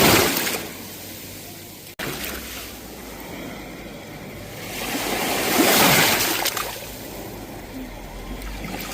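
Sea waves breaking and washing up the shore: the tail of one wave fades at the start and another surge builds to a peak about six seconds in. A brief dropout cuts the sound about two seconds in.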